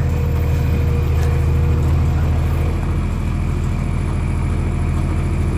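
Bobcat skid-steer loader's engine running steadily at a low, even speed, with a regular low pulsing throb.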